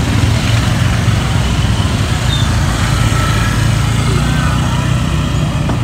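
Small motorbike and scooter engines running at low speed close by, a steady hum, with the chatter of a market crowd behind.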